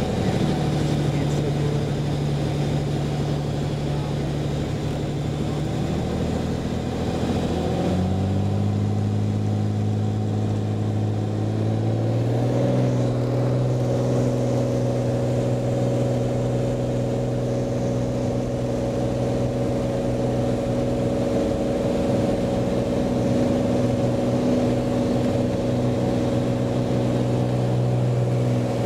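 Cirrus SR22T's turbocharged six-cylinder piston engine and propeller heard from inside the cockpit, running at low power, then stepping up in pitch and strength around eight and twelve seconds in and holding steady at high power for the takeoff roll.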